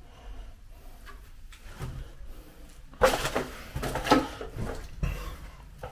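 Footsteps and handling bumps, with a loud scrape and knock about three seconds in as a door is pushed open, and short creaks just after.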